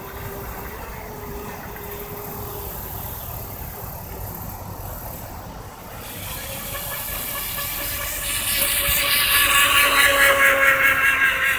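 Mad Shark F1 tunnel-hull RC boat's 2500 kV brushless motor on a 3S battery, whining at speed across the water. The whine is faint and steady at first, then grows loud and higher as the boat runs past close by near the end.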